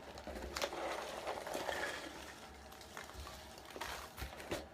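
Faint rustling of packaging as a box is searched by hand, with a few light clicks and knocks near the start and toward the end.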